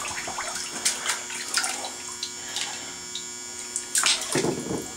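Water splashing and dripping in a bathtub as a pistol magazine is scrubbed with a soapy washcloth, with a louder splash about four seconds in.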